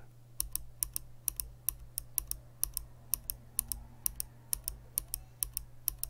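A Kailh click-bar clicky keyboard switch pressed and released over and over, about two presses a second. Each stroke gives a pair of sharp clicks, one on the way down and one on the way up. The clicks are loud and crisp.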